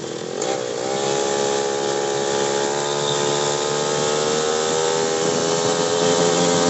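Motorcycle engine heard from on board while riding. Its note dips briefly about half a second in, then climbs slowly and steadily as the bike speeds up, over a steady rush of wind and road noise.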